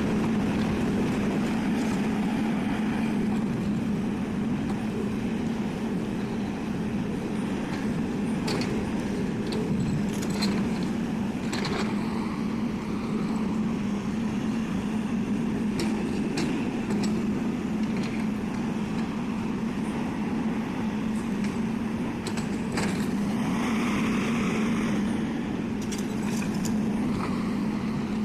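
Excavator's diesel engine running steadily under load, a constant low hum, with scattered short clanks and clicks from the working machine.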